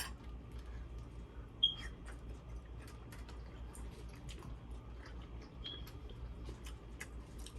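Close-up eating sounds: wet chewing with many small mouth clicks and smacks while seafood is eaten. There is a short high squeak about a second and a half in and another near six seconds, over a steady low hum.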